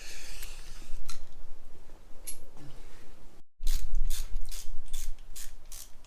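Hand ratchet wrench worked in quick strokes, its pawl clicking about three to four times a second after a short break about halfway through. Before the break there are only a few scattered clicks and tool handling.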